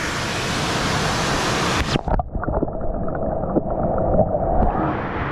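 Rushing waterfall noise that turns abruptly muffled about two seconds in as the camera goes underwater, leaving a dull churning rumble with small knocks. Near the end the sound brightens somewhat.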